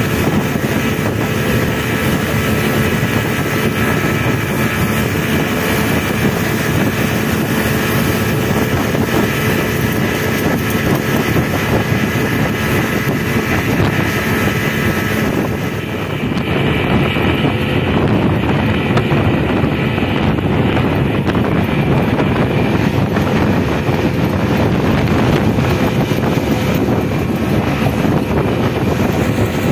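Speedboat engine running at speed, with wind buffeting the microphone. About halfway through the sound dips briefly, then comes back slightly louder and duller.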